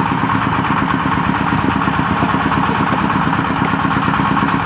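Engine-driven red brick-making machine running steadily, a constant mechanical drone with a fast even pulse.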